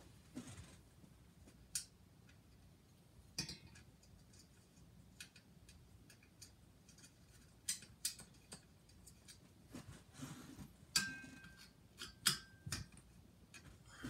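Scattered light clicks and taps of small hard objects being handled, irregular rather than rhythmic, with two louder clinks near the end that ring briefly like metal.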